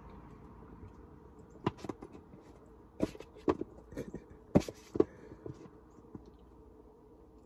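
Objects being handled close to the microphone: about seven or eight sharp clicks and knocks in quick irregular succession through the middle, the loudest about four and a half to five seconds in.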